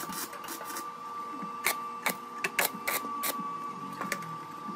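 Sharp metal clinks and knocks, about a dozen irregular taps, as a steel piece is handled and set upright in the slot of a welded steel jig on a steel workbench, over a steady high-pitched hum.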